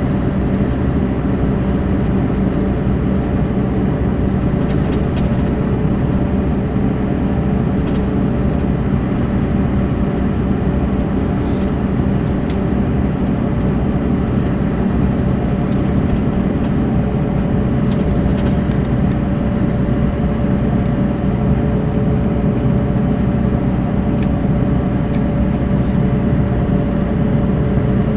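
Mercedes-Benz O500 RSD BlueTec5 coach's diesel engine running steadily at an even speed, a constant hum with no revving.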